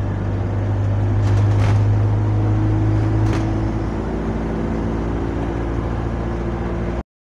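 Single-deck bus's diesel engine droning under way, heard from inside the passenger saloon, with a couple of brief rattles about one and a half and three seconds in. The sound cuts out abruptly near the end.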